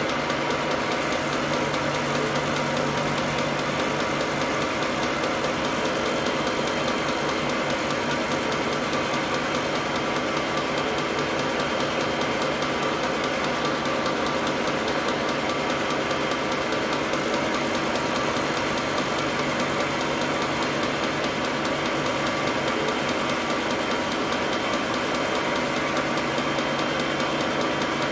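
Vertical milling machine running steadily, its end mill cutting into a metal part with an even mechanical drone.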